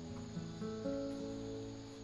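Background music on acoustic guitar: a few single notes plucked one after another and left to ring.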